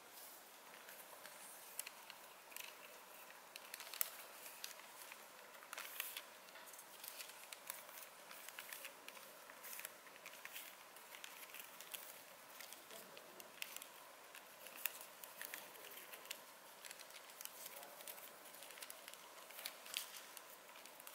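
Thin paper being folded and creased by hand on a tabletop: faint, irregular crinkles and small crisp clicks, one louder snap about four seconds in.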